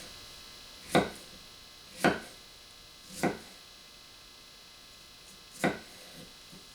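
A small kitchen utility knife dicing fresh strawberries, its blade striking the cutting board four times, each a sharp knock, spaced about a second apart with a longer gap before the last.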